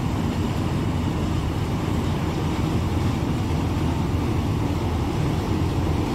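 Self-propelled combine harvester running steadily while harvesting mustard, a constant low, even machine noise with no breaks.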